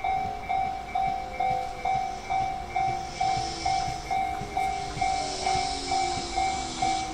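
Japanese level-crossing warning bell ringing in an even, fast pulse of about two strikes a second. Under it an electric train runs past, its motor whine falling in pitch, with a hiss of wheels and rails building from about three seconds in.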